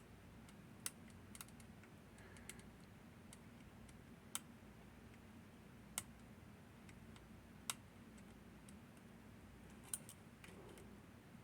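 Scattered sharp metallic clicks, about one every second or two over near silence, from lock-picking tools working the levers of a Northern Telecom NE-22 six-lever lock.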